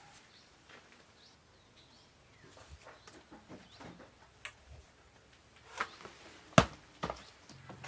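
A long pole knocking and scraping against a banana plant, stirring its leaves: scattered light taps that build to a sharp knock about two-thirds of the way in, with a few smaller knocks around it. Faint bird chirps are heard at the start.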